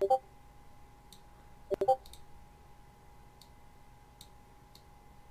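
Computer mouse clicking: a quick double click at the start and another just under two seconds in, with fainter single clicks between. A faint steady whine runs underneath.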